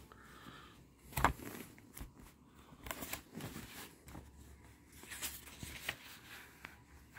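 A hardcover children's picture book being opened and its pages turned: a sharp tap about a second in, then soft paper rustles as the pages are turned.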